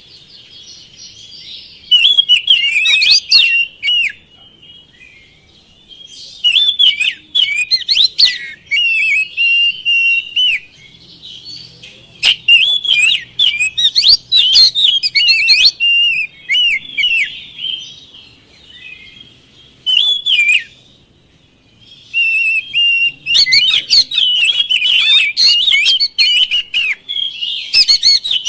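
Oriental magpie-robin (kacer) singing loud, rapidly varied whistled phrases. The song comes in bursts of a few seconds each, with short pauses between them.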